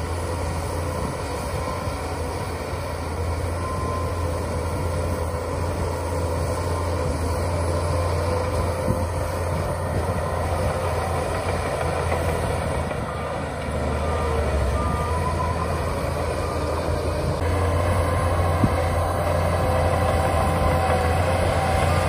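Shantui DH17 bulldozer's diesel engine running steadily under load as it pushes a heap of soil, a little louder about two-thirds of the way in.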